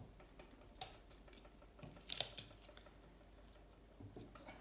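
Faint rustling with a few short crackly clicks as adhesive tape is handled and pressed down by hand; the sharpest crackle comes about two seconds in.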